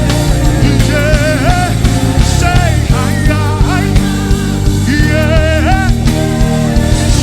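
Live praise-and-worship band music: a steady beat and bass under a lead melody sung or played with a wavering vibrato.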